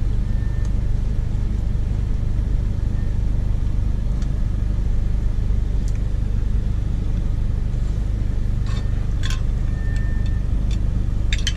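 Steady low rumble of a car engine idling, with a few light clicks near the end.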